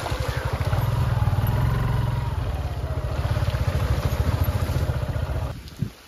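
Small motorcycle engine running at low speed with an even, rapid throb while being ridden slowly along a rough dirt track. The sound cuts off abruptly about five and a half seconds in.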